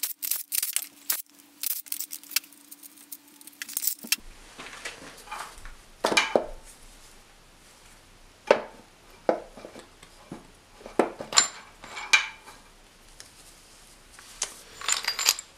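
A cordless power tool whirs in short runs for the first four seconds, backing out the bolts of the oil filter housing on a BMW M54B30 engine, with sharp clicks. Then come scattered metallic clinks and knocks as the housing and its parts are worked loose and lifted off the engine block.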